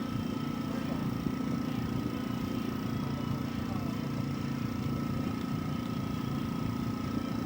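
Small hobby air compressor running, a steady, unbroken hum with a thin constant tone above it, supplying air to a Gundam Marker airbrush.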